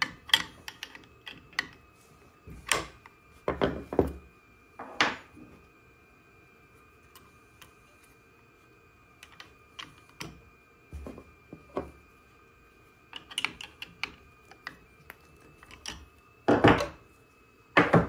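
Metal clicks, clinks and knocks of wrenches on a CNC router spindle's collet nut as a 90-degree V-bit is fitted and tightened, with two louder knocks near the end. A faint steady high whine runs underneath.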